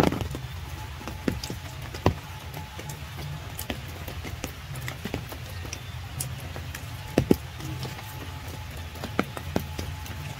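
Rain falling, with irregular drops striking nearby surfaces as sharp ticks, a few of them louder, over a steady low rumble.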